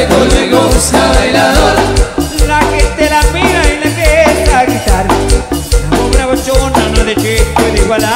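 Live band playing upbeat Latin dance music, with a steady, even bass beat, percussion, and melodic instrument lines.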